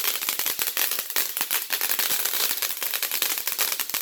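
Firework crackling: a rapid, dense string of small sharp pops and crackles.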